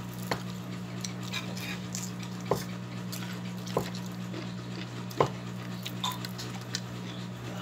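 Eating sounds: chewing and fingers picking at fried fish and vegetables on a plate, with a few sharp clicks spread through. A steady low hum runs underneath.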